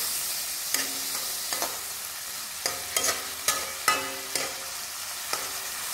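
Shrimp sizzling in margarine in a metal wok while a metal spatula stirs them, scraping and clinking against the wok. The clinks come every half second or so, each with a brief metallic ring, and are most frequent and loudest in the middle.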